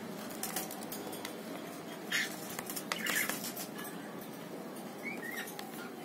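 Cockatiels bathing in a shallow plastic tray of water: irregular splashes and wing-flutters as they dip and shake, with a brief chirp about five seconds in.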